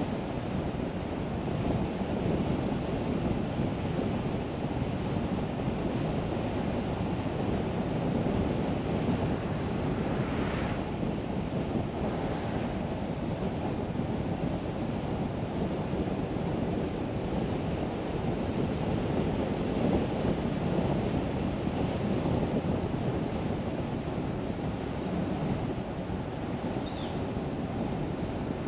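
Steady road and wind noise of a car on the move: an even, dense rush, heaviest in the low range, with no engine note standing out.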